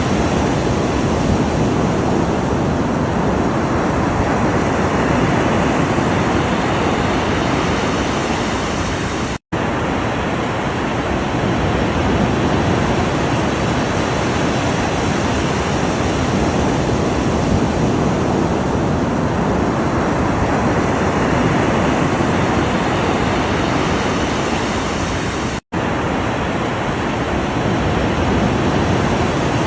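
Ocean waves washing continuously, swelling and easing slowly. The sound cuts out for a split second twice, about a third of the way in and near the end.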